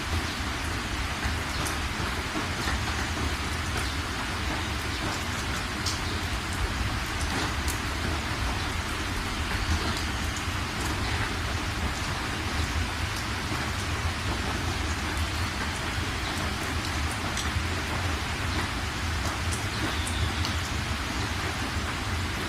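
Steady rain falling, an even hiss with scattered individual drops ticking, over a constant low rumble.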